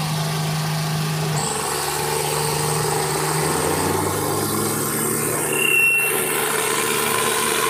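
Swaraj 855 and Sonalika RX 60 tractor diesel engines pulling at full load against each other in a tug-of-war, running hard and steady. The engine note steps up about a second and a half in as they are pushed harder.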